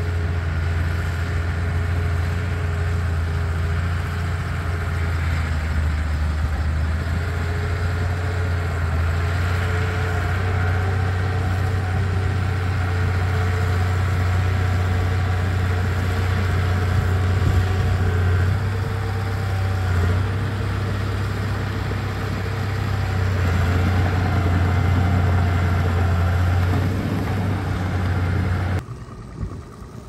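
Small crawler bulldozer's diesel engine running steadily as it pushes wet soil, a constant low drone that shifts slightly in pitch as the load changes, dropping away abruptly near the end.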